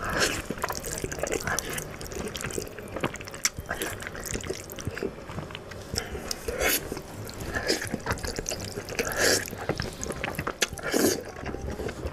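Slurping and chewing of jajangmyeon (black bean sauce noodles) eaten with chopsticks: wet, sticky mouth sounds and quick smacks, with a few louder slurps in the second half.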